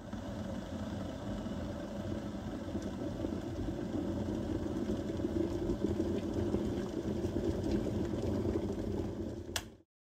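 Kettle heating water toward the boil: a steady low rumbling hiss that grows slightly louder, with no whistle. A sharp click comes near the end, just before the sound cuts off.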